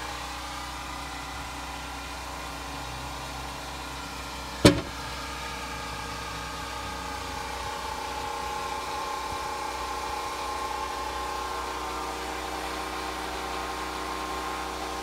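Portable generator engine running steadily, with one sharp knock about four and a half seconds in.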